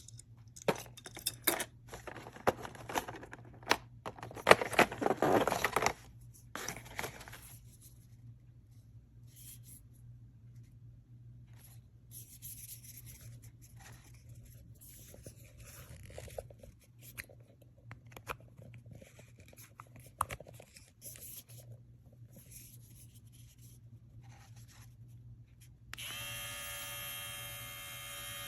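Clicks, scrapes and rustling of small plastic parts being handled, busiest in the first few seconds. About 26 seconds in, a small cordless pet grooming clipper switches on and runs with a steady buzz.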